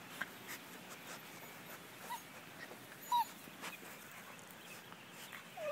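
German Shepherd puppies, about five weeks old, whimpering softly: two brief high squeaks about a second apart, then a short falling whine near the end.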